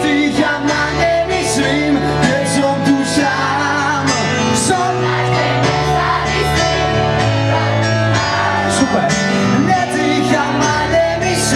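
Live pop-rock band playing a song: drums with repeated cymbal hits, bass and electric guitar, with a voice singing over them.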